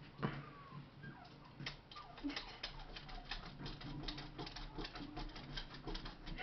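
A rough collie shifting on the floor as it lies down and rolls onto its back: a rapid, irregular run of light clicks and scuffs from its body and claws, starting about a second and a half in.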